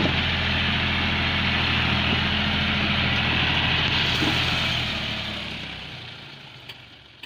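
Heavy diesel engine running steadily, fading away over the last two seconds or so.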